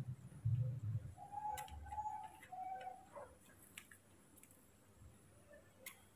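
Baby monkey suckling milk from a feeding bottle: faint sucking clicks, with low gulping thuds in the first second. Between about one and three seconds in, three short, even-pitched coo-like calls follow one another.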